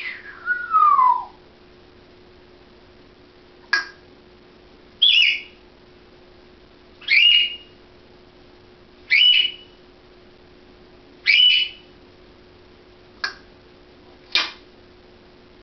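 African grey parrot whistling: a long falling whistle near the start, then five short whistled calls about two seconds apart, each sweeping up and ending on a held high note, and two sharp clicks near the end.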